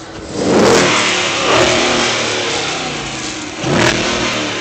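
Dodge Charger's engine revved hard three times through its exhaust, each rev climbing and falling back in pitch, the third, about four seconds in, the sharpest.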